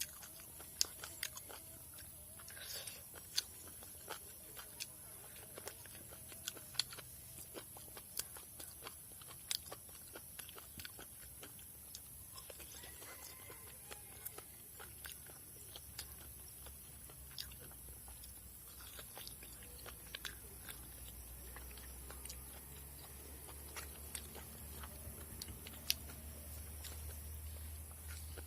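A person chewing and eating close to the microphone, with frequent short clicks and clinks scattered throughout. A low hum grows louder in the last third.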